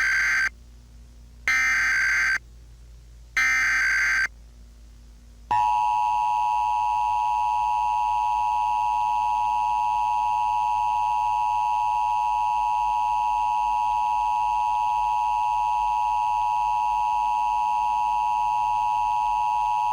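Emergency Alert System SAME header: three data-tone bursts of about a second each. About five seconds in comes the two-tone EAS attention signal (853 and 960 Hz sounded together), a steady harsh tone that cuts off abruptly at the end.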